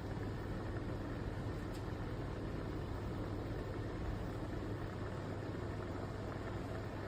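Chefman glass electric kettle heating just under a liter of water as it starts to boil, with small bubbles forming at the bottom: a steady rumbling hiss.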